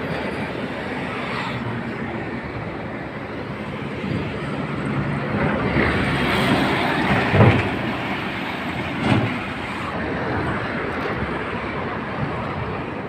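Road traffic passing close by: a steady rumble, with two heavier thumps about seven and nine seconds in.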